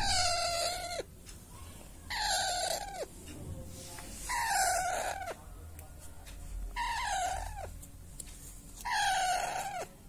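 Baby Alexandrine parakeet calling five times, about every two seconds, each call about a second long and dropping in pitch at its end: a chick's food-begging calls.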